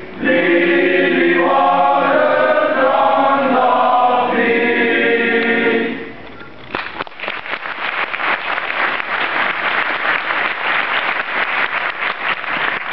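Male choir singing a Romanian Christmas carol (colindă), closing on held notes about six seconds in. A moment later the audience breaks into applause that carries on.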